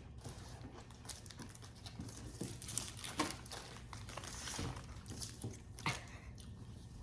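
Snack wrappers crinkling and rustling as they are handled, with scattered small clicks and taps.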